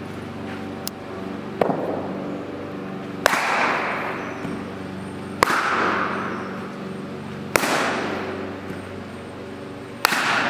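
Cricket bat striking weighted training balls: four loud cracks about two seconds apart, after a fainter one, each followed by a long echo through the hall, over a steady low hum.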